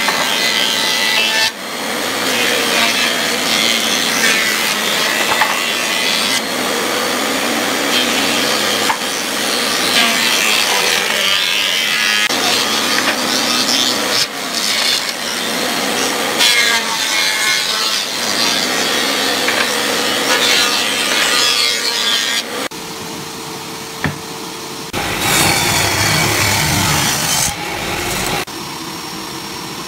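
Industrial thickness planer running with boards fed through it: a loud, continuous cutting noise of wood being planed, with short dips between boards. Near the end the cutting stops, leaving a quieter steady machine hum, broken once more by a few seconds of louder cutting.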